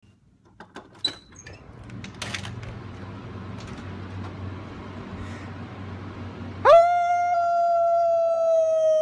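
A man's long, loud scream held on one high pitch, starting suddenly about two-thirds of the way in. Before it there are a few clicks and knocks of handling over a low steady hum and faint open-air noise.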